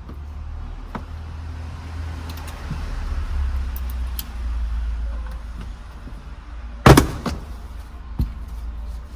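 Hand work on a car's interior trim: a steady low rumble with scattered light clicks, then one loud sharp knock about seven seconds in and a smaller knock about a second later.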